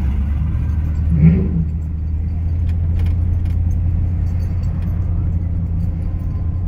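Steady low drone of engine and road noise heard from inside a car's cabin while driving. There is a short louder sound about a second in, and a few faint clicks a couple of seconds later.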